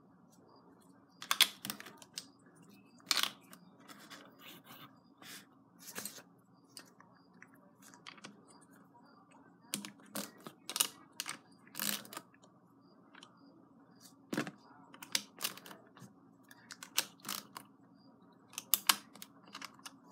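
Hard plastic clicks and taps, irregular and often in quick clusters, as LEGO pieces are set down and pressed onto the studs of a LEGO baseplate display.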